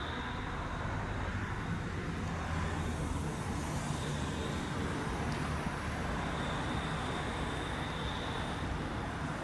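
Articulated battery trolleybus driving slowly past through street traffic: a low, steady electric hum, with a faint high whine at times.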